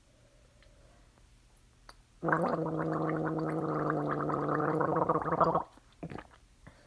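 A person gargling water in the throat: one long, steady gargle with a fast bubbling flutter, starting about two seconds in and stopping sharply after about three and a half seconds.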